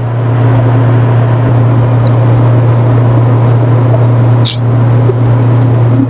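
Cabin noise of a Bombardier business jet in cruise: a steady low hum with a hiss of rushing air over it. A single short click sounds about four and a half seconds in.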